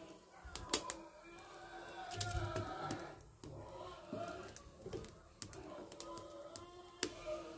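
Kakawati (Gliricidia) firewood burning under a cooking pot, giving off irregular sharp crackling pops, about eight scattered through a few seconds.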